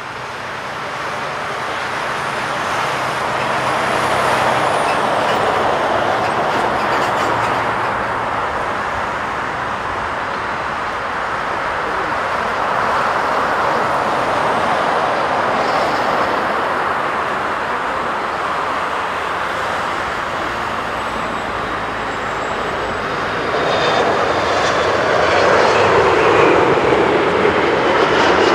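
Boeing 747-400's four jet engines spooling up to take-off power: a steady, loud jet noise that grows over the first few seconds, then swells again near the end as the jumbo starts its take-off roll.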